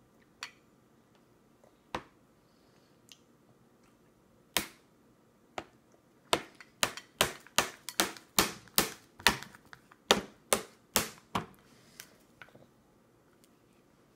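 A baby's plastic spoon banging on a high chair's plastic tray. A few single knocks come first; about six seconds in they turn into a quick run of sharp knocks, about three or four a second, that lasts some five seconds.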